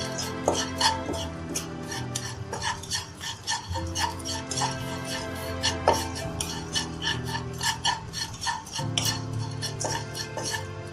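A spoon stirring and scraping in a pan of dry-roasting whole spices and ginger, with quick clinks and scrapes several times a second, over background music.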